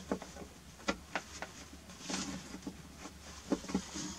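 Scattered small clicks and rustling of a cable connector being handled and fitted onto a tr(u)SDX QRP transceiver.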